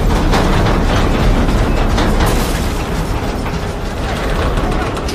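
Film earthquake sound effects: a loud, continuous deep rumble with repeated crashes of collapsing buildings and falling debris, and explosion booms.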